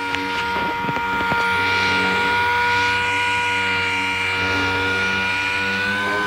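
Dual-action orbital sander running steadily while sanding a truck's painted body panel, a constant whine that rises slightly in pitch near the end.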